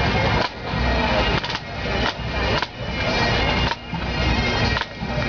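Pipe band drum corps playing a marching beat on snare drums, tenor drums and a bass drum. The drumming is dense and rhythmic, with a brief break about once a second.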